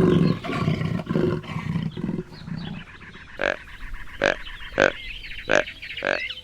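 Farm animal calling: a deep, rough call for the first two seconds or so, then short calls repeated about every two-thirds of a second, with small birds chirping faintly behind.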